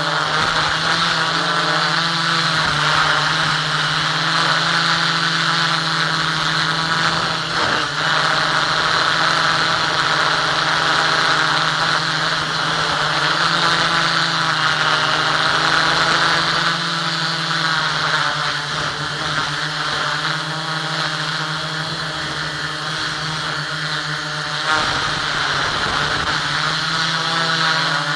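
Onboard audio of an FPV aircraft's motor and propeller running steadily. Under a constant low hum, a higher whine drifts up and down in pitch as the throttle changes.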